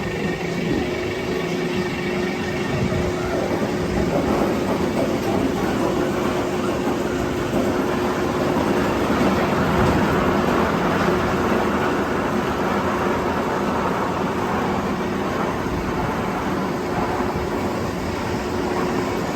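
Steady vehicle or machinery noise with a constant hum, growing louder in the middle and easing off toward the end.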